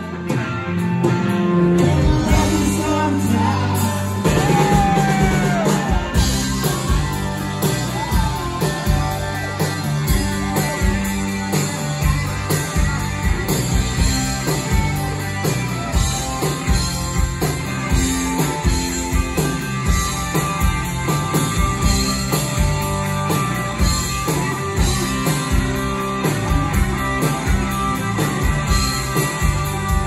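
Live rock band playing electric guitars, bass and drums with a singing voice, over a steady beat.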